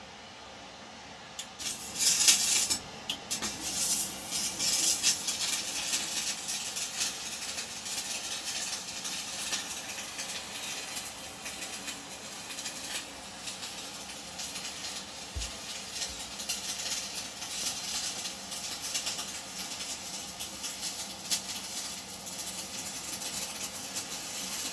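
Electric arc welding, the arc crackling and spitting unevenly. It strikes up about a second and a half in and carries on over a steady hiss of ventilation.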